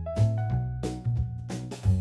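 Upbeat background music with piano chords over a steady drum beat.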